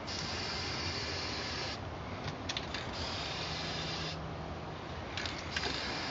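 Aerosol spray can spraying in three long hissing bursts, with two short breaks and a few clicks between them.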